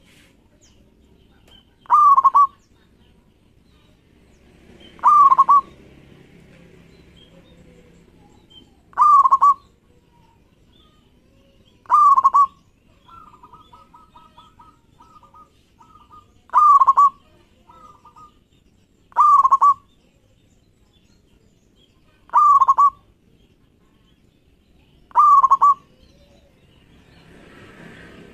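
Zebra dove (local perkutut) cooing: eight short, loud coos about three seconds apart, with a run of softer, quick, clipped notes between the fourth and sixth coos.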